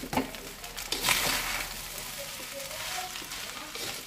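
Fried rice sizzling in a wok while a metal spatula stirs and scrapes it around the pan, the loudest scrape about a second in.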